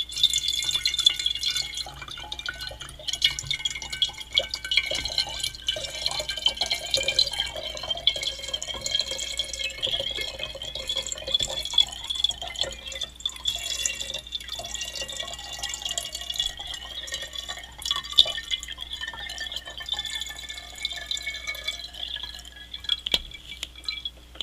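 Water pouring from a plastic bottle into a home water carbonator's bottle, steady throughout, tailing off near the end as the bottle runs empty.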